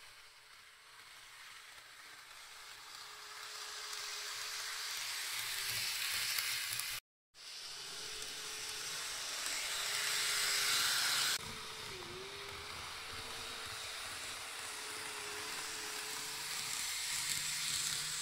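N-scale TOMYTEC Railway Collection JR 713 series model train running on its track: the whir of its small motor and its wheels on the rails, with a faint wavering whine. It grows louder as the train approaches, breaks off briefly about seven seconds in, builds again, and drops sharply about eleven seconds in as the train goes past.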